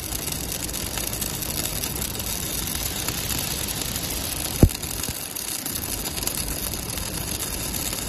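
Automatic steel prop welding machine running: a steady mechanical hum with a continuous crackling hiss, and one loud clunk about four and a half seconds in.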